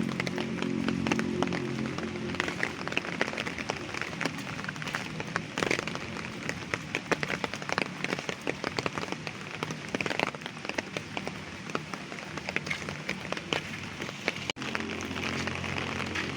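Rain falling, with many separate drops striking close by. A low steady hum sits underneath for about the first two seconds, then returns after a brief gap near the end.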